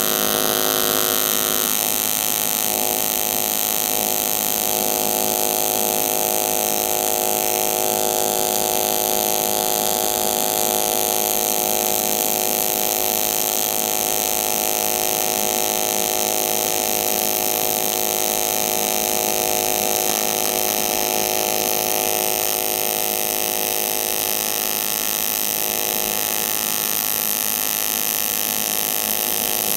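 AC TIG arc from an Everlast 200DV welding cast aluminum: a steady buzz with a hiss over it. The welder is feeding filler rod to fill a V-groove ground into a crack in the casting.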